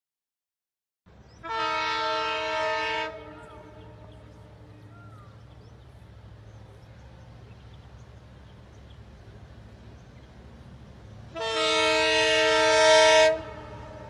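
Two long blasts of an Indian Railways locomotive horn from a train approaching along the line, each held at one steady pitch, the second longer and louder. A low steady rumble runs between them.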